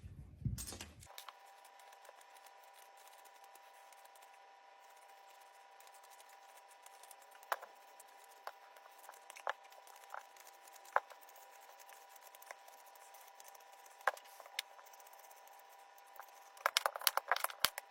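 Knife work on raw taro root, peeling and cutting: faint, scattered short scrapes and clicks, coming in a quick cluster near the end.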